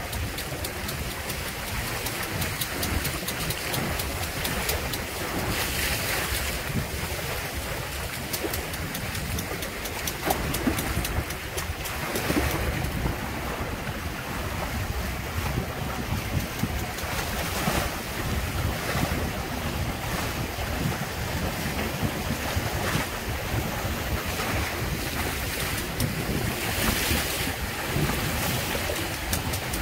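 Water rushing and splashing past the hulls of a Windrider 17 trimaran under sail, with wind buffeting the microphone in a steady low rumble. Now and then the water's hiss swells louder as a wave slaps by.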